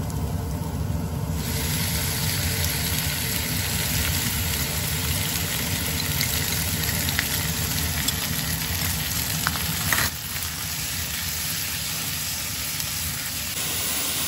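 Thin slices of beef shank hit hot oil with minced garlic and shallot in a nonstick skillet and sizzle steadily while being stirred with chopsticks; the sizzle jumps up about a second and a half in as the meat lands. A short knock about ten seconds in, after which the sizzle is a little quieter.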